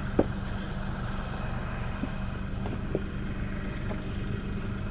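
A steady low rumble with a few scattered sharp knocks, the loudest just after the start.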